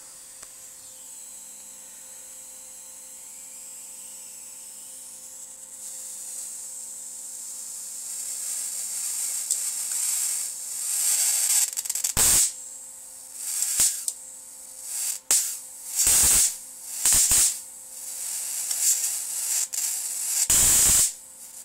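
High-voltage sparks from a CRT monitor's flyback output at the picture tube's anode cap. A steady hiss swells from a third of the way in. In the second half come half a dozen loud, sharp spark bursts, the last and longest near the end.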